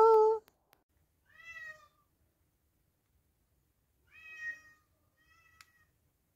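A held sung note stops just after the start. Then a domestic cat meows three times: short meows about a second and a half in and near four seconds, and a fainter one just after five seconds, with a faint click during it.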